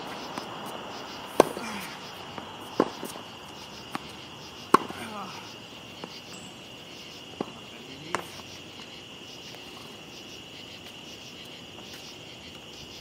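Tennis ball struck by Head racquets and bouncing on a hard court: about six sharp pops over the first eight seconds, the loudest about a second and a half in and near five seconds. Under them, a steady high chirring of night insects.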